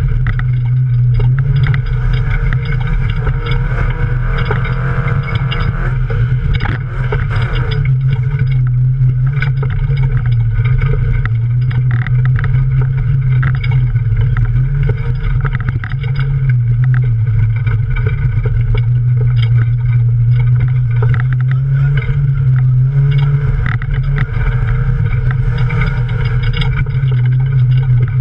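Offroad race car engine running hard and steady, heard from inside the stripped cabin, its pitch wavering slightly with the throttle. Mud and grit patter and clatter against the body and windscreen throughout.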